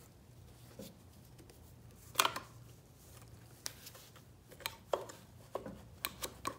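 Scattered light metallic clicks and taps of hand tools and small engine parts being handled during an engine teardown, with one louder knock about two seconds in and a quicker run of clicks in the second half.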